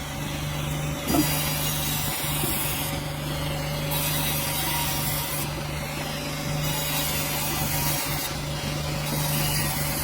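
Sawmill running steadily, an engine hum under the saw cutting through a dense hardwood log, with a brief knock about a second in.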